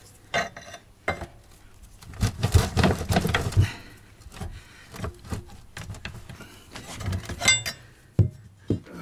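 Metal clinks, knocks and scrapes of a pressure washer pump being wiggled and worked off the engine's keyed drive shaft, which is rusty and tight. The sharp taps come in irregular clusters, thickest in the first few seconds and again near the end.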